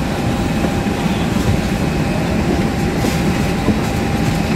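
Cabin noise inside an Airbus A320 taxiing before takeoff: a loud, steady low rumble from the jet engines and the rolling wheels, with light rattling.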